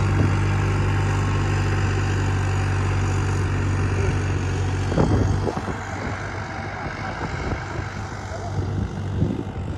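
Tractor diesel engine running steadily under load while dragging a harrow through dry soil, a low steady drone. About five seconds in the drone drops away, leaving a rougher, noisier rumble.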